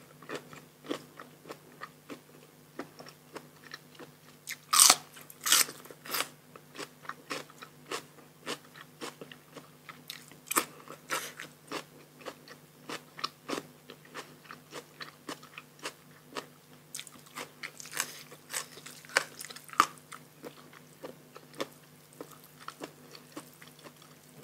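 Close-up eating sounds: a person biting and chewing raw shrimp with fresh bitter gourd, a steady run of sharp, crisp crunches. The loudest bites come about five seconds in and again in the last third.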